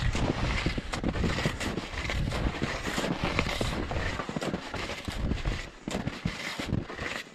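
Wind buffeting the microphone, with irregular crunching and swishing of hunting skis moving over snow.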